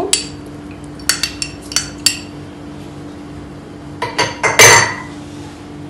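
Metal spoon clinking and tapping against a small glass bowl as chopped onion is scraped out, a few sharp clinks in the first two seconds. About four seconds in comes a louder, longer clatter of dishes.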